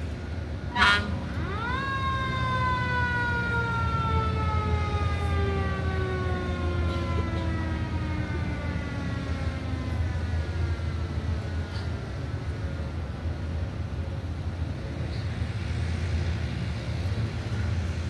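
Mechanical siren on an emergency vehicle winding up to a high wail in about a second, then slowly winding down in pitch over about eight seconds as it coasts to a stop. A steady low hum runs underneath.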